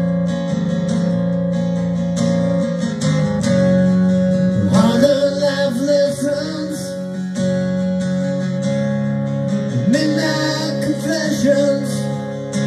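A recorded song plays: strummed acoustic guitar with a singing voice, its melodic phrases coming about five seconds in and again about ten seconds in.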